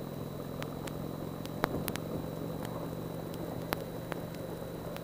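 Indian Chieftain Dark Horse's Thunder Stroke 111 V-twin engine running steadily at cruising speed. Over it a steady thin high whine and a few sharp clicks, audio faults that the uploader puts down to his GP10 needing an update.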